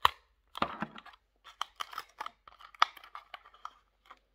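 Clear plastic blister pack crackling and crinkling as it is worked and pulled open by hand, in irregular sharp clicks and rustles.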